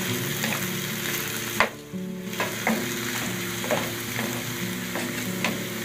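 Pork pieces and diced tomato sizzling in a frying pan while a wooden spatula stirs them, with a scrape of the spatula against the pan about once a second.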